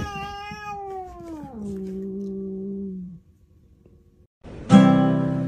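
A pet's long drawn-out howl that falls in pitch, holds low, and stops about three seconds in. After a second of silence, an acoustic guitar starts strumming near the end.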